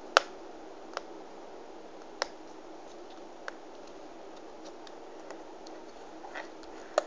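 Paper being creased and folded by hand, giving a few short sharp crackling clicks, the loudest just after the start, over a steady faint hiss.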